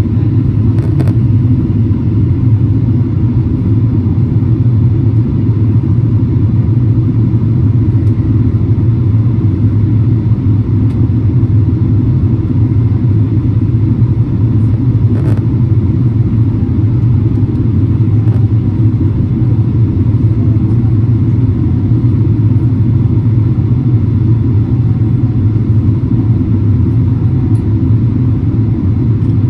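Jet airliner cabin noise during descent: a steady, loud low rumble of engine and airflow noise heard inside the cabin from a window seat over the wing.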